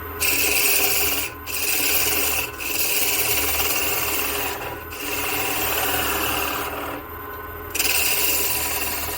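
A turning gouge cutting a spinning block of western cedar on a wood lathe. It makes a rasping shaving noise in several passes, with short breaks between them, over the steady hum of the lathe.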